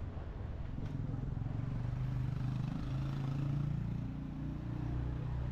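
A motor vehicle's engine running close by in street traffic: a steady low hum, strongest in the middle.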